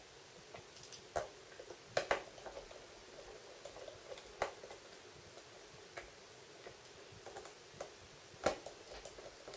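Faint, irregular clicks and taps of a small Phillips screwdriver working the tiny screws out of a Samsung Galaxy S4's plastic midframe, the loudest a double click about two seconds in and a sharp tap near the end.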